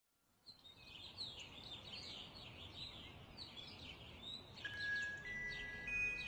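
Many small birds chirping rapidly. About two-thirds of the way through, a few held musical tones join in.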